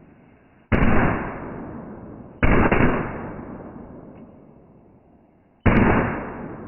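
Three 1.4G cherry bomb firecrackers going off one after another, each a sharp bang that fades away slowly over about two seconds. The second bang follows the first by under two seconds, and the third comes about three seconds later.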